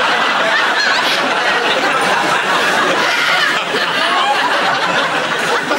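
A large audience laughing, loud and sustained.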